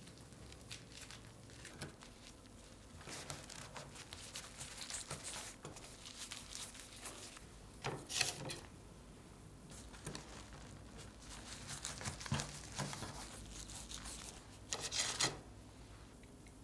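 Bamboo rolling mat and dried seaweed rustling and crinkling as a kimbap roll is rolled and pressed by hand, in several uneven bursts, the loudest about eight seconds in and near the end.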